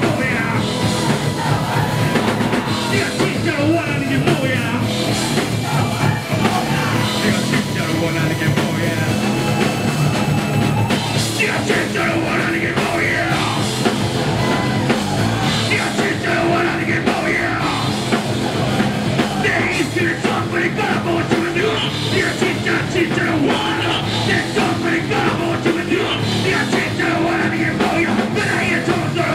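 Live rock band playing a heavy metal song, loud and steady: drum kit, electric guitar and bass, with a singer's voice over them.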